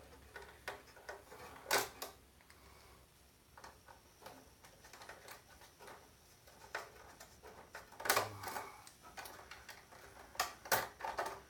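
Scattered clicks and light metal clatter of a screwdriver working on parts inside a computer case, with a few sharper knocks about two seconds in and again in the last few seconds.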